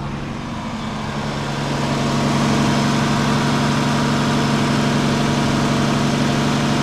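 A 1974 Plymouth Valiant's engine idling steadily, shortly after being started. It grows a little louder over the first two seconds, then holds even.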